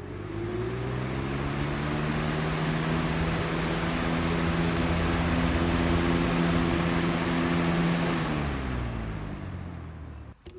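Lasko 3733 box fan's motor and blades humming and whirring, rising in pitch as it speeds up, running steady for several seconds, then falling in pitch as it slows near the end before a brief cut-off.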